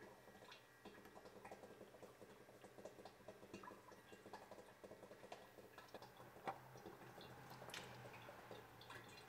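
Faint, scattered small clicks and drips as an engine oil filter is unscrewed by hand and oil drips from it, with one sharper click past the middle.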